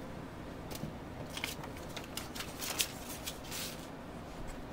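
Hands handling the plastic-framed bug zapper and its loose parts on a table: scattered light clicks and short high rustles, with a slightly longer rustle about three and a half seconds in.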